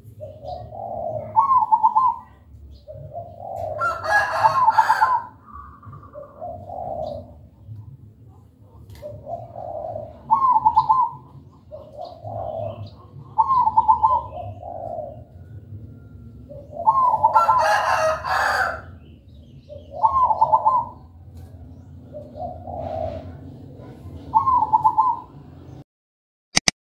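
Zebra dove (perkutut) cooing: phrases of low coos, each ending in a quick run of higher notes, repeated about every three seconds. Two louder, harsher calls come about four and eighteen seconds in. The song cuts off just before the end, followed by a short click.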